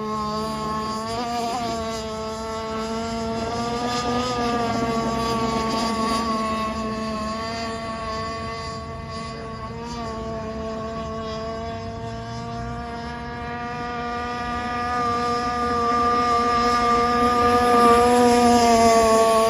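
Small gas engine of a radio-controlled boat running at speed with a steady, high pitch that wavers slightly. It is quieter in the middle and grows louder in the last few seconds.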